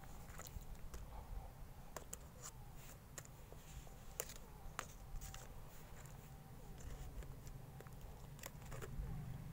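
Faint scattered clicks and light rustling from a hand handling potted seedlings and their soil, over a low steady hum.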